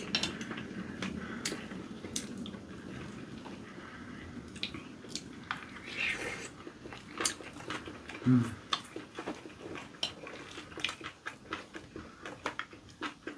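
Two people eating kimchi fried rice: chopsticks and spoons click and tap against ceramic bowls, with soft chewing in between. A short, louder low sound comes about eight seconds in.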